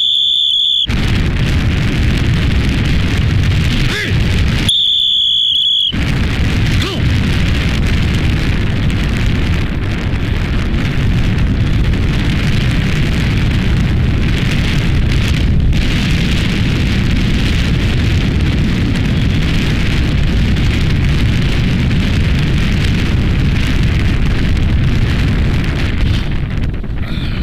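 Strong wind buffeting the microphone throughout. A steady high-pitched whistle tone sounds briefly at the start and once more, about a second long, some five seconds in.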